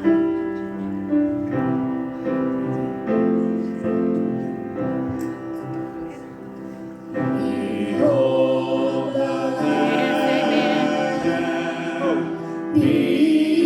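Gospel song introduction: piano and sustained chords, swelling fuller and louder about seven seconds in.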